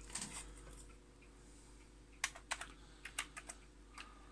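Keys being typed on a Commodore 64 keyboard: a quick run of about eight clicks that starts about halfway in.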